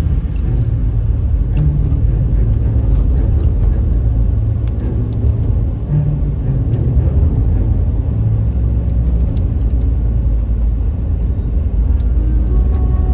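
A car driving along a road, heard from inside the cabin: a steady low rumble of engine and tyres, with a few faint ticks.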